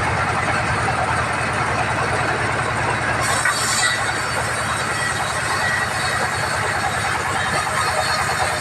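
Sawmill bandsaw machinery running steadily, with a brief higher hiss a little over three seconds in.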